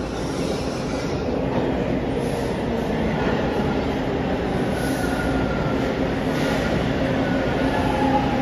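TTC T1 subway train pulling into the station, its motor and wheel rumble growing louder as it approaches. A faint high whine joins about halfway through.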